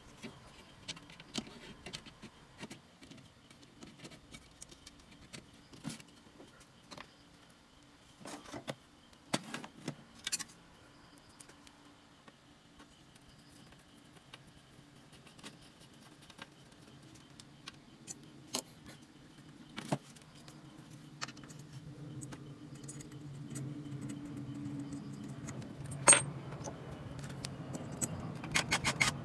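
Scattered clicks and clinks of metal parts being handled: an inverter driver board with aluminium heatsinks being fitted into its sheet-metal case. A low rumble swells in the last third, with one sharp knock about 26 seconds in.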